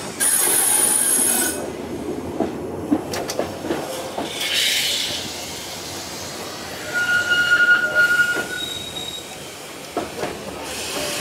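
Vintage electric tram running along the rails, its steel wheels rumbling on the track. The wheels squeal high in the first second and a half, then squeal again on a single clear note for about a second and a half around seven seconds in.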